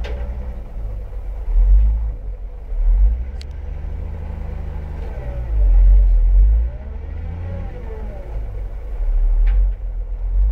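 Diesel engine of a Cat 972H wheel loader running under heavy load with a boulder of about 17 tonnes in its bucket, the deep rumble swelling four times.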